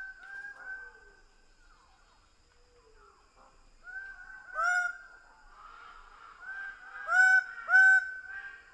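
Greater bird-of-paradise giving harsh, honking calls: softer calls repeated throughout, one loud call about halfway through and two loud calls in quick succession near the end.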